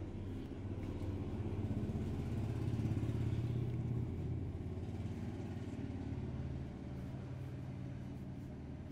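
A motor vehicle's engine running, growing louder over the first few seconds and then fading.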